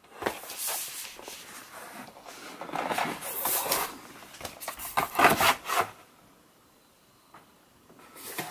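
A wireless keyboard being pushed and slid out of its white cardboard packaging tray: cardboard and keyboard rubbing and scraping in several strokes, stopping about six seconds in.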